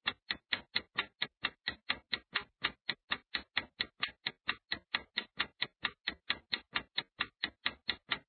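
Clock-style ticking sound effect marking a countdown timer: a steady run of sharp ticks, about four a second.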